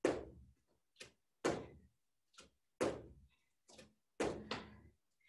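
Feet landing on a floor during star jumps: about seven sharp thuds at uneven spacing over four seconds, each dying away quickly.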